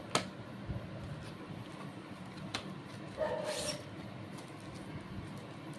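Phone box and accessories being handled during an unboxing: a sharp click just after the start and a few light ticks. About three seconds in comes a short bark-like call.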